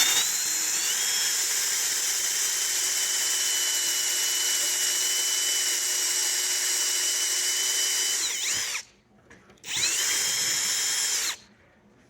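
Electric drill boring out the lock cylinder of a 1969 Ford Mustang ignition switch, running steadily for about eight seconds, winding down, then a short run of under two seconds before it stops again.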